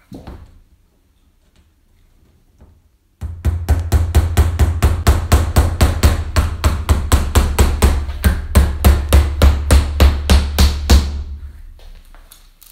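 Fast, evenly spaced knocks, about five a second, over a low rumble, starting suddenly about three seconds in and dying away near the end.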